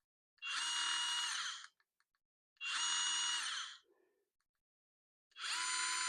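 Amazon Basics by SKIL 4V cordless stick screwdriver motor whirring in three short trigger pulls of a bit over a second each. Each run holds one steady whine that sinks in pitch as the motor spins down.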